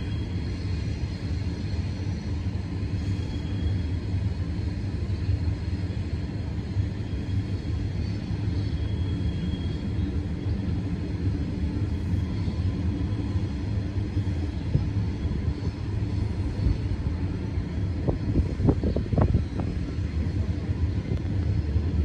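Freight train climbing the grade with diesel locomotives: a steady low rumble, with a few brief knocks about eighteen seconds in.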